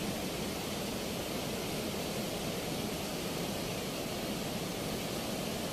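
River water rushing through the open sluice gates of a barrage weir and churning turbulently below them: a steady, even rush of water noise.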